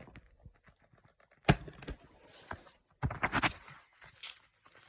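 Handling of a metal 4K Steelbook disc case: a sharp tap about a second and a half in, then a quick cluster of clicks and rubbing about three seconds in, and one more light click near the end.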